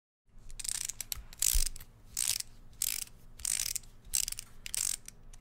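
Fine paintbrush bristles scratching across textured canvas in short, regular strokes, about one every two-thirds of a second, over a faint steady hum.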